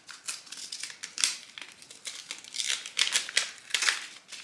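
Paper seed packet crinkling and rustling in the hands as it is worked open, a quick irregular run of short crackles and rips.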